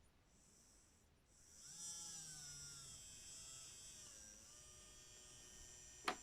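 Miele Softtronic toy washing machine paused between steps of its wash program: near silence with a faint whine that wavers and slowly falls in pitch, then two sharp clicks near the end.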